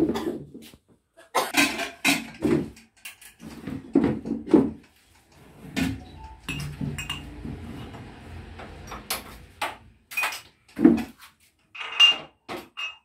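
Dishes, cups and pots knocking and clattering as they are handled, in a string of short, sharp strikes, with a steady hiss for a few seconds midway.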